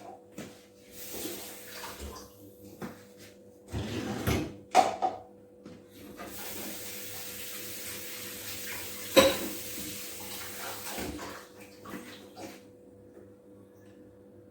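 Kitchen tap running into a sink for about five seconds as dishes are rinsed, with dishes clattering and knocking together, the loudest a single sharp clink partway through the running water.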